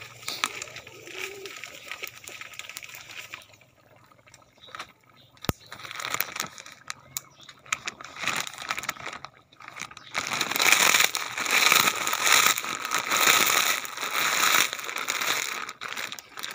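Plastic snack bag crinkling as it is handled and opened by hand, loudest and densest in the last several seconds.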